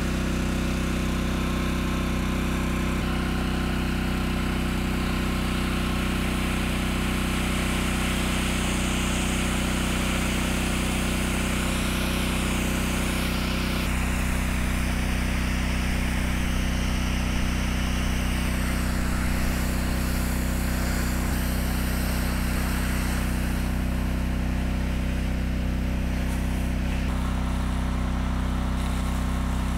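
Portable gasoline fire pump engine running steadily, with the hiss of a high-volume water jet spraying from the hose nozzle.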